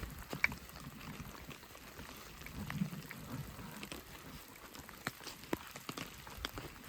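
Rain: scattered raindrops and drips ticking irregularly, over a faint low rustle.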